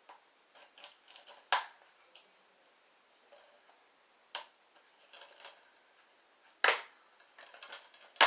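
Hands working at a plastic DVD case and its wrapping: scattered small clicks and crinkles, with four sharp knocks or taps a couple of seconds apart.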